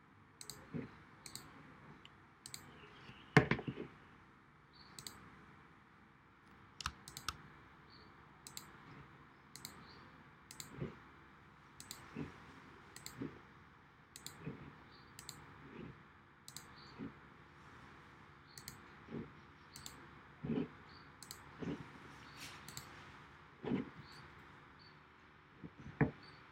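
Irregular clicks of a computer pointer button, roughly one a second, with one louder knock about three and a half seconds in, over a faint steady hiss.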